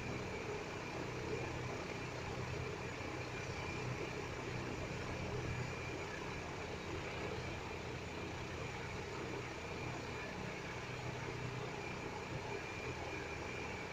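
A steady low hum with a faint high-pitched whine and background hiss above it, unchanging, with no distinct strokes or knocks.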